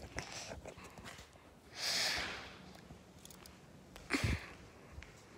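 A short breathy sniff close to the microphone about two seconds in, then a brief knock with a low thud about a second before the end.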